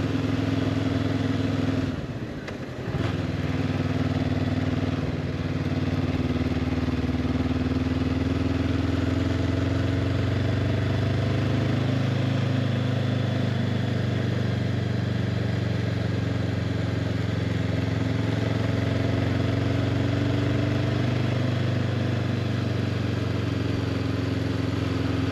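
Honda CB500X's parallel-twin engine running steadily while riding, over wind and road noise. The sound drops briefly about two seconds in, and the engine note rises a little around ten seconds in.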